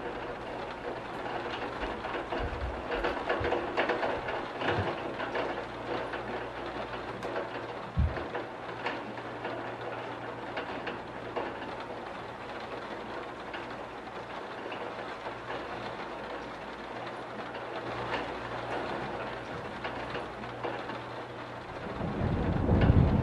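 Rain pattering on window glass, with scattered drips over a steady low hum. There is one sharp thud about eight seconds in, and a deep rumble of thunder builds near the end.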